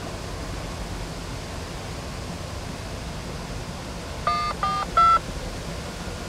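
Three quick touch-tone phone keypad beeps, each a different pitch, about four seconds in, over a steady low rumble from a distant passing freight train.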